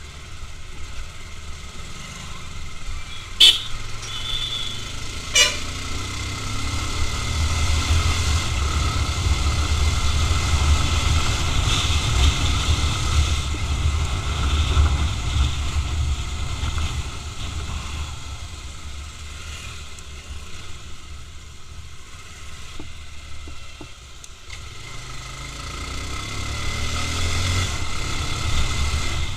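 Road riding heard on an action camera's mic: vehicle engine and wind rumble that swells, eases and swells again. A short horn toot comes a few seconds in, with a sharp click about two seconds later.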